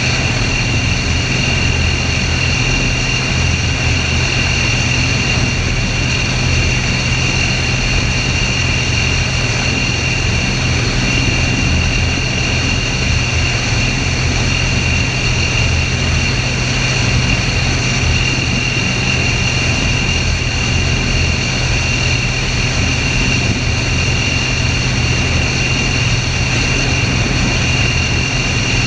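Mi-28 attack helicopter in flight, heard close up from on board: a steady drone of its twin turboshaft engines and main rotor, with a high whine held at one pitch throughout.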